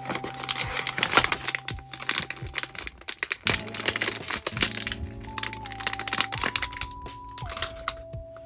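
Background music with a slow melody of held notes, over rapid crinkling and clicking from packaging being handled and opened.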